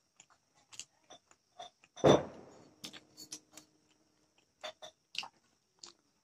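Close-up eating sounds: a run of small sharp clicks and smacks from mouth and fingers working the food. About two seconds in comes one loud knock on the stainless steel plate, which rings briefly and fades.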